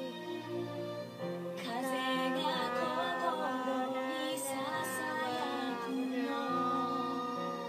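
Music: a female voice singing a melody over steady held instrument notes, the voice coming in about a second and a half in.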